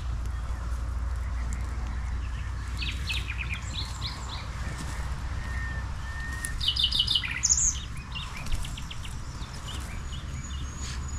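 Small songbirds chirping in short runs of quick, high notes, the loudest run about seven seconds in, over a steady low rumble.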